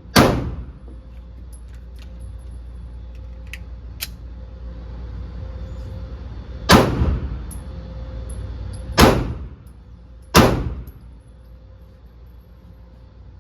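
Glock pistol shots, each sharp crack ringing out briefly: one right at the start, then three more spaced a few seconds apart, the last two about a second and a half apart.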